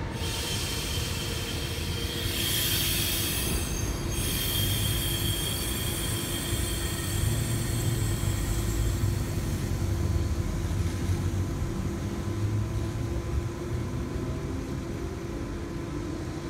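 Intercity V-set double-deck electric train pulling away from the platform: high wheel squeal for the first few seconds, then a steady low rumble as it moves off and recedes.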